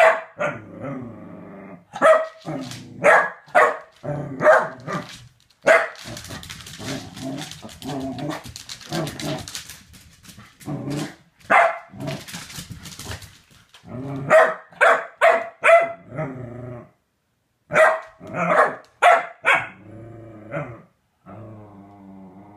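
Pembroke Welsh Corgi barking at a femur bone, in runs of short, sharp barks with low growling between them and near the end.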